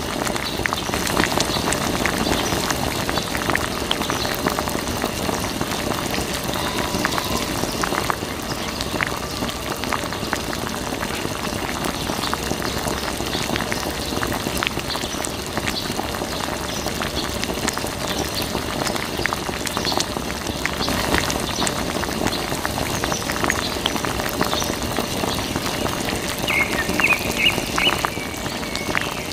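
Water from a small hose splashing and trickling onto a toy tractor and wet sand, a steady fizzing patter with many small drips.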